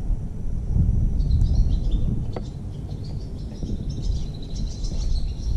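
Small birds chirping in short, scattered high notes over a steady low rumble.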